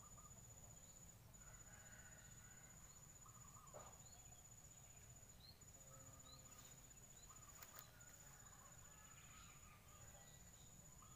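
Near silence outdoors: a faint, high-pitched insect trill running in long stretches broken by short gaps, with a few faint distant bird chirps.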